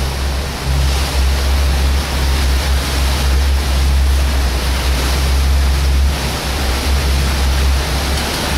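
Steady rush of wind and breaking waves with a low rumble and a boat's engine droning underneath, heard from the helm of a cruiser running through four-foot waves.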